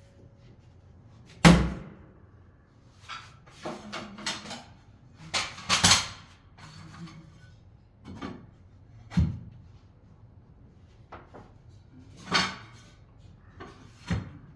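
Irregular knocks and clatter of hand work on a renovation job: about ten separate impacts at uneven spacing, the loudest about a second and a half in.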